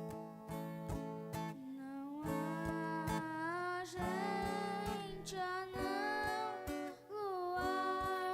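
Strummed chords on a viola caipira, steady strokes under held chords, with a sustained melody line entering about two seconds in and sliding between long held notes.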